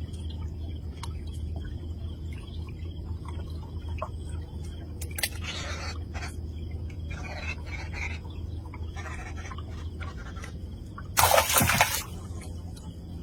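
Water sounds over a steady low rumble, with a few short splashes and one louder splash near the end.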